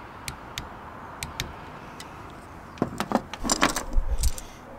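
A few sharp clicks from a torque wrench tightening a small bolt in the first second and a half, then a loud clatter of metal and hard plastic from about three seconds in as the wrench is set down on the steel bench top and the bolted 3D-printed specimens are gathered up, jangling against each other.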